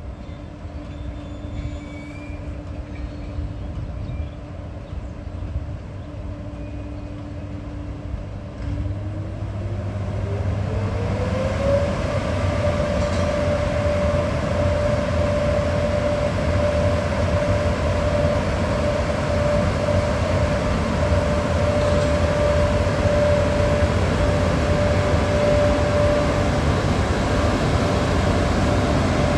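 VR Class Sr1 electric locomotive standing ready to depart, its electrical equipment giving a steady whine over a low rumble. About nine seconds in the whine rises to about twice its pitch over some three seconds, then holds steady at the higher note while the rumble grows louder.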